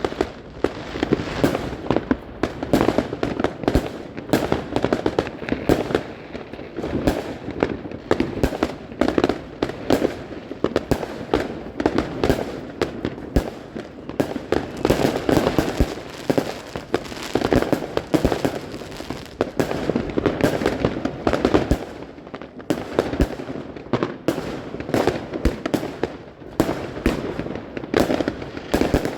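Fireworks going off without a break: a dense, overlapping run of bangs and crackling bursts.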